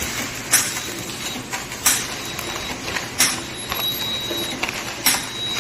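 Nitrogen sealing packaging machine running, with a sharp hissing clack repeating about four times, roughly every one and a half seconds, over a steady mechanical hum and a faint high whine that comes and goes.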